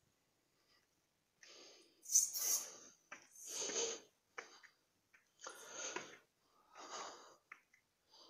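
A person breathing heavily close to the microphone: about five noisy breaths, a second or so apart, with near silence between them.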